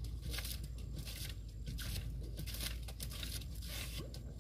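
Hand boring of a tube well: a run of short, irregular noisy strokes as the bamboo lever pumps the boring pipe up and down and water and mud are worked through the pipe, over a steady low rumble.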